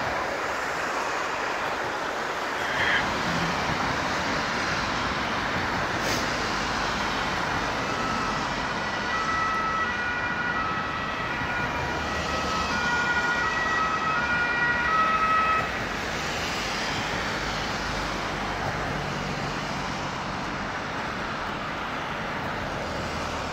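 Ambulance two-tone siren, distant and alternating between two pitches, heard from about eight seconds in until it stops about fifteen seconds in, over the steady noise of passing road traffic.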